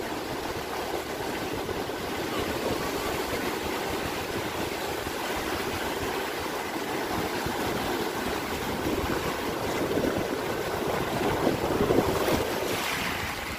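Ocean surf breaking and washing up a beach in a steady rush, with wind buffeting the microphone.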